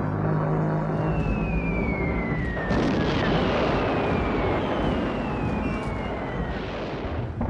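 War sound effect of bombs falling and exploding: a descending whistle heard three times, over a rumble of explosions that starts about a third of the way in. Low musical tones from the score fade out in the first two seconds.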